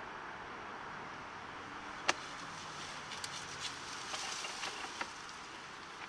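Sewer inspection camera being pushed through the drain line on its push cable, working past a pipe offset: a steady hiss with one sharp click about two seconds in, then a run of lighter clicks and knocks.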